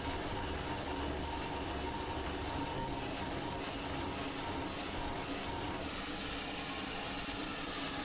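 Angle grinder with a cup grinding wheel grinding weld build-up beads flat on steel vise jaws: a steady grinding hiss with a constant whine. Over the last two seconds a higher whine falls slowly in pitch.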